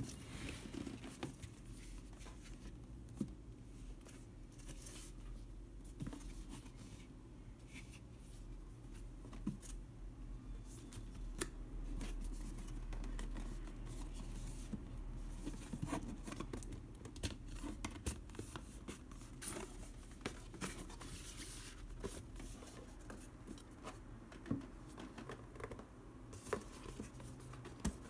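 Hands handling a corrugated cardboard mailer box: the box scrapes and taps on a wooden table and its cardboard flaps are folded open, with scattered sharp clicks over a low steady hum.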